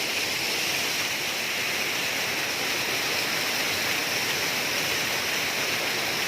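Waterfall: falling water rushing in a steady, even wash of noise with no break.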